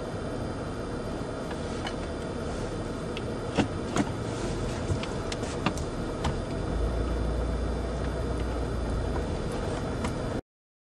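Car driving on a rough mountain road, heard from inside the cabin: steady engine and road noise with scattered sharp knocks and rattles, and a heavier low rumble a little past the middle. The sound cuts off abruptly near the end.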